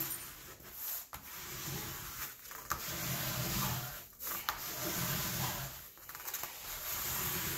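A ruler pushed and scraped firmly across the plastic film of a diamond painting canvas in several long strokes, each about a second. It is pressing the adhesive down onto the canvas so that no bubbles form.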